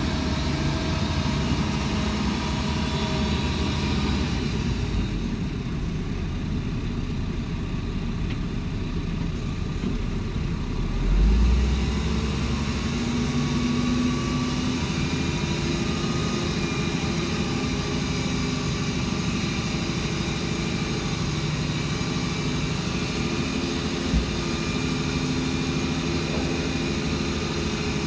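Shantui DH17C2 bulldozer's diesel engine running steadily, with a brief low surge about eleven seconds in and a single short knock near the end.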